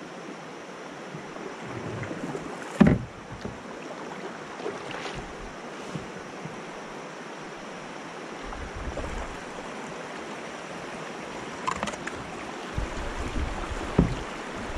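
Swift river water rushing and splashing around a kayak as it is paddled, a steady rushing noise. A sharp knock about three seconds in and a few lighter taps later, with a low rumble coming in over the second half.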